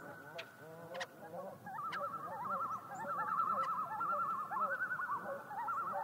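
Several common loons calling in overlapping tremolos: quavering, rapidly wavering calls. The calls are thinner for the first couple of seconds and then fill out into a dense chorus.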